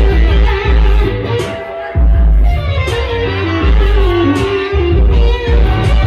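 Live music: an electric guitar plays bending lead lines over a heavy, pulsing bass beat.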